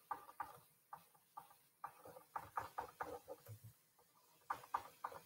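Stylus tapping and scraping on a tablet screen while handwriting numbers, a quick irregular run of quiet clicks and short scratches.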